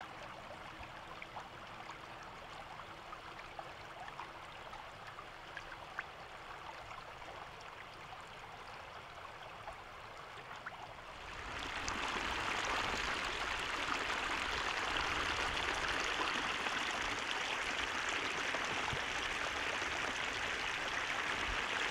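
Shallow floodwater trickling through a bamboo fence trap, faint, with a few small clicks. About halfway through it becomes a louder, steady rush of muddy water pouring across a dirt road.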